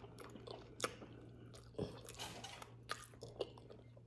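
Close-miked chewing and mouth sounds of a person eating, with a few short sharp smacks.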